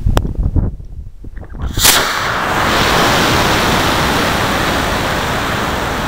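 Aerotech I-300 high-power rocket motor igniting with a sudden loud crack about two seconds in, then a steady, loud rushing roar of the motor burn and air rushing past as the rocket climbs, heard from a camera riding on the rocket. Before ignition, gusts of wind buffet the microphone.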